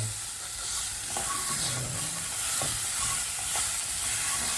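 Cut maroon snake beans frying and sizzling in hot oil with tempered onion as they are stirred in the pan, with a steady hiss and a few light knocks of the stirring utensil against the pan.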